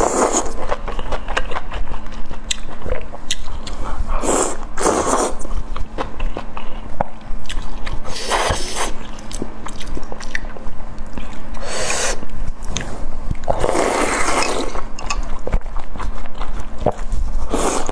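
A person slurping and chewing sliced beef and enoki mushrooms in chili broth, close to the microphone. There are about five long wet slurps, with short clicks of chewing and chopsticks between them.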